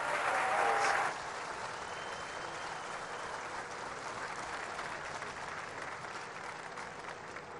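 Large crowd applauding at the end of a speech, loudest for about the first second, then steady and slowly fading toward the end.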